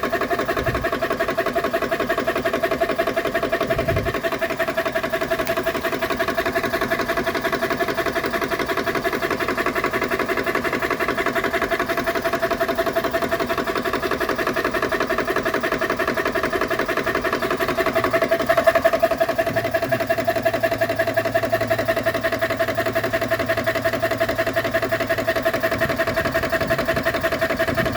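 GX Pump CS2 portable 12-volt high-pressure air compressor running steadily under load while filling an air tank, its piston pump chattering at a fast even beat.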